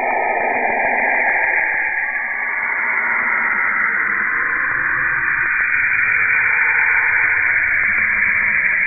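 Radio emissions from Saturn converted into sound: a dense, steady hiss like a radio tuned between stations. A band of pitch fades away over the first few seconds, and a low rumble comes up about halfway.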